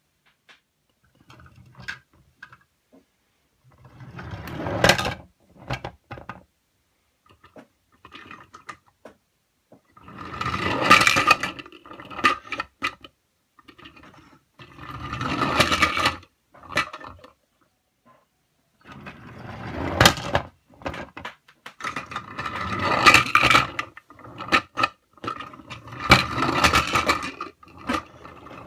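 Chunky plastic toy cars pushed along a surface by hand, their wheels rolling and scraping in repeated bursts of a few seconds each, with small clicks and rattles between.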